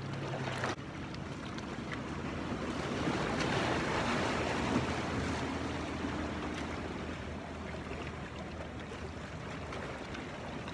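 Sea waves washing against shoreline rocks: a steady rushing surf that swells a little around the middle. A single brief knock comes under a second in.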